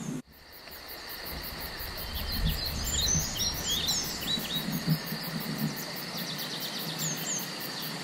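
Small woodland birds calling with short, falling chirps, a run of them a few seconds in and a few more near the end, over a steady outdoor hiss.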